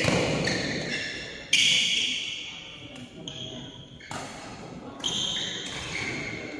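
Badminton play on a hall court: sharp racket strikes on the shuttlecock and players' shoes on the court mat, each sudden sound ringing on in the hall's echo, with the loudest strike about a second and a half in.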